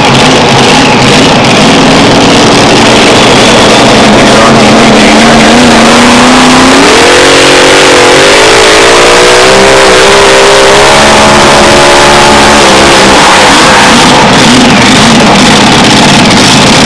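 Mini Rod pulling tractor's engine running at full throttle under load, very loud, its pitch climbing as the tractor pulls the sled, stepping higher about seven seconds in, then dropping back a few seconds before the end.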